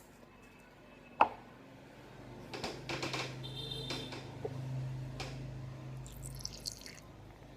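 Slime-making handling sounds: one sharp click about a second in, then a few seconds of rustling and small knocks over a low steady hum.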